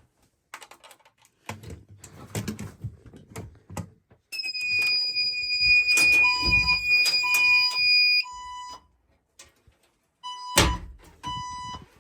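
Fire alarm system going into alarm: a steady high-pitched electronic tone comes on about four seconds in and cuts off abruptly about four seconds later. A lower beeping tone in short half-second pulses starts partway through and keeps repeating, with sharp clicks among the beeps. Scattered knocks and handling noises come first.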